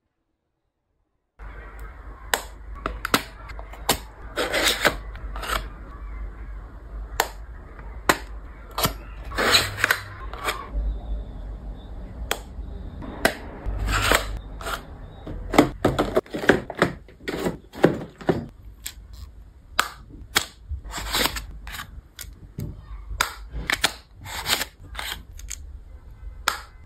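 Close-miked ASMR unboxing handling sounds: long acrylic nails tapping and clicking on cardboard makeup boxes and compacts, with paper rubbing as boxes are opened. The sharp taps come irregularly, several a second at times, starting after a second or so of silence.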